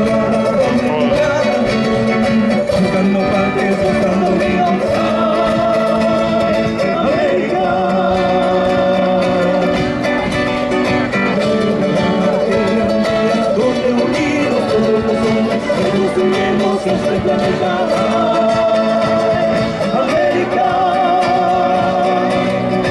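Live Bolivian folk music from a band of guitars and drums, with singing.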